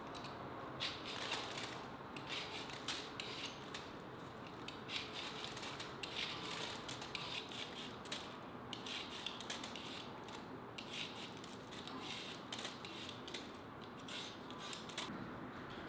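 Hand vegetable peeler scraping the skin off a potato and a carrot: an uneven run of short scraping strokes, a couple a second, with brief pauses between them.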